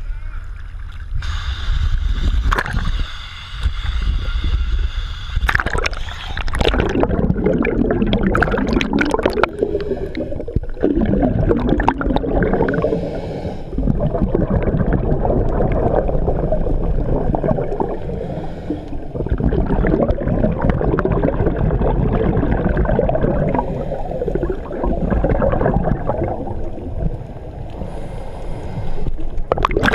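Underwater bubbling and gurgling from a scuba diver's regulator exhalations. From about six seconds in it comes in long surges every few seconds.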